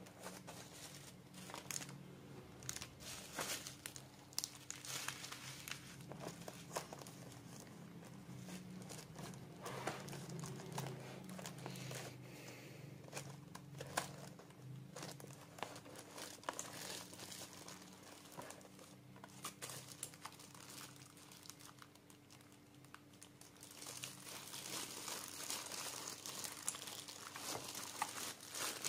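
Plastic bubble wrap and a thin paper sleeve around a keyboard crinkling and rustling as they are handled and unwrapped, with small crackles throughout and a fuller rustle near the end.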